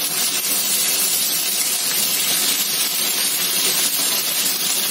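Ginger-garlic paste and browned onions sizzling in hot oil in a kadhai, a steady hiss as it is stirred with a spatula.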